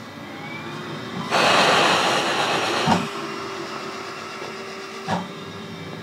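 A cough assist machine (mechanical insufflation–exsufflation device) cycling through a mask to clear thick phlegm from a child's airway. It gives a loud rush of air for about a second and a half that ends with a click, then a quieter steady hum, and another click about two seconds later.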